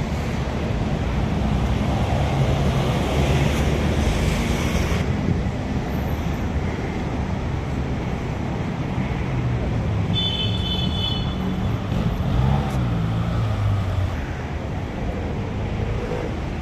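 Steady city road-traffic rumble with some wind on the microphone. A brief high-pitched tone comes in about ten seconds in.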